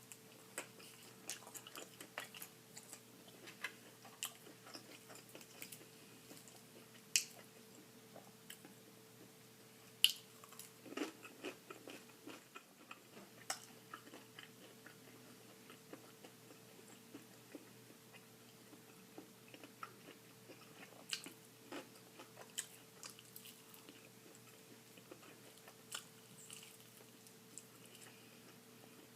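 A person biting and chewing fried chicken drumsticks: scattered crisp crunches of the fried skin and wet mouth clicks, irregular and fairly quiet, with two sharper crunches about 7 and 10 seconds in.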